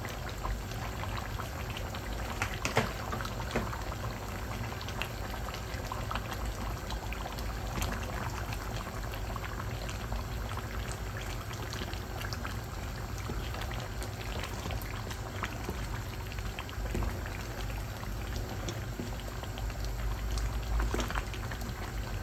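Pot of chicken pieces simmering in their liquid, bubbling steadily, with a few knocks and scrapes of a wooden spatula stirring in the spices.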